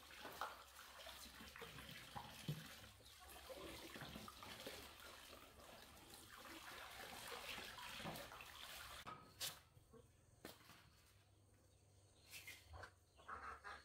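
Faint water splashing and trickling, with small knocks, for about nine seconds, then a quieter stretch broken by a sharp click and a few soft knocks.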